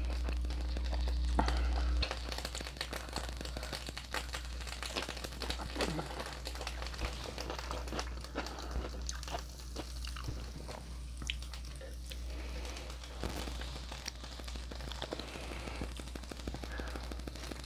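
Close-miked chewing and mouth sounds: irregular wet clicks and smacks, several a second, over a steady low hum that drops in level about two seconds in.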